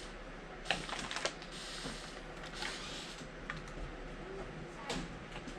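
Irregular small plastic clicks and taps as a toy-grade RC car's remote and truck are handled and switched on.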